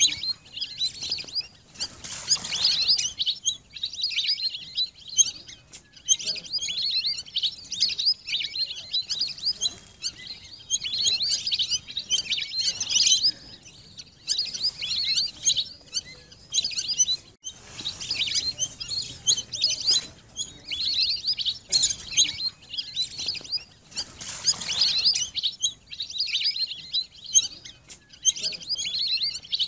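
A flock of lesser whistling ducks calling: many high whistled notes overlapping in a busy chatter that comes in bursts with brief pauses.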